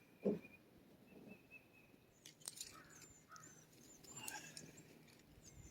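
Faint outdoor ambience with birds chirping in short high calls. A single dull thump comes right at the start, and a sharp click comes a little past two seconds.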